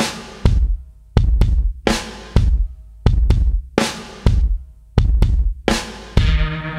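Background music: a produced drum beat of deep kick drum and sharp snare hits in a steady pattern, with a bass line and synth notes coming in near the end.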